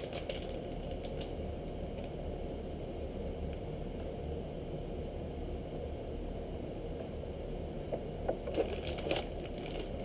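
Steady low background hum, with a few soft crinkling clicks near the end as a plastic pack of soft-plastic fishing baits is handled and opened.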